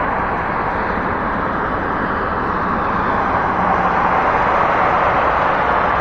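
City street traffic noise: a steady rush of passing vehicles, swelling slightly about two-thirds of the way through.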